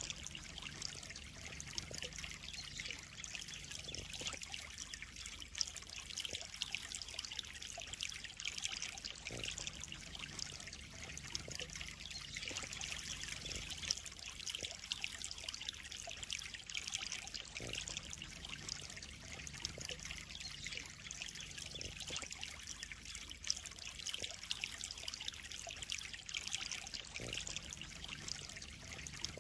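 Pond water trickling and splashing steadily, a continuous bright hiss of falling water.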